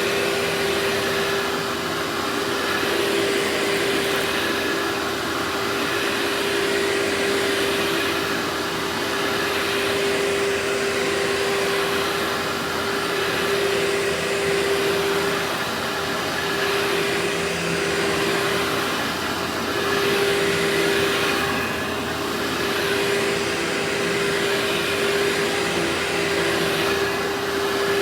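Vacuum cleaner running steadily, a constant motor whine over the rush of air, the airflow swelling and easing slightly every couple of seconds.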